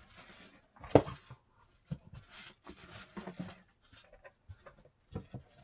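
Rustling and handling noises in short bursts as hardcover books are moved among paper and bubble-wrap packing, with a sharp knock about a second in, the loudest sound.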